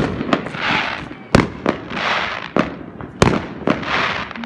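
Aerial fireworks going off: a series of sharp bangs, the loudest right at the start, about a second and a half in and about three seconds in, with hissing crackles between them.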